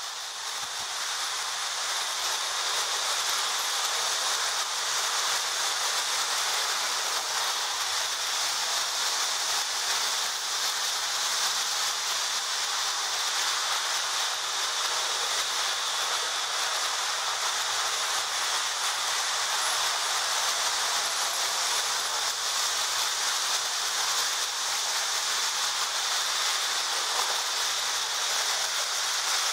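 Marx tinplate toy electric trains running on three-rail track: a steady rolling whir and hiss of wheels and motors with a high whine, fading in over the first couple of seconds.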